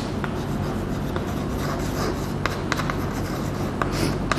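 Chalk writing on a chalkboard: scratchy strokes with several short sharp taps in the second half, over a steady low hum.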